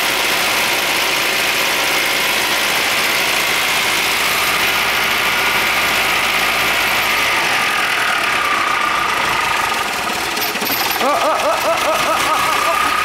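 MGB GT's 1.8-litre B-series four-cylinder engine idling steadily as it warms up. A steady high whine joins about two-thirds of the way in.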